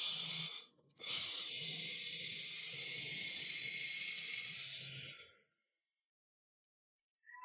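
A short hiss, then after a brief break a steady hiss of about four seconds that cuts off sharply.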